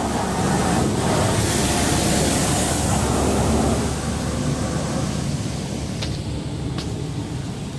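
Touch-free car wash spray jets pelting the car, heard from inside the cabin as a steady rushing hiss that eases off about four seconds in, with two light clicks near the end.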